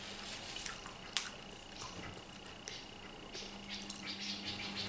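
Close wet clicks and smacks of someone chewing grilled squid and handling it with her fingers, with one sharper click about a second in.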